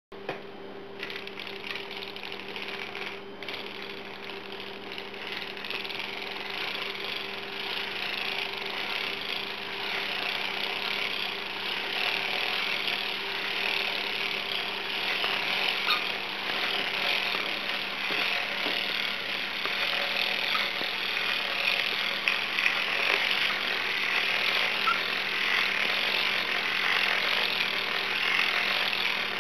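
Harmony Knitter circular sock machine being hand-cranked, its needles and cam mechanism making a continuous dense clatter that grows louder over the first several seconds as the cranking picks up.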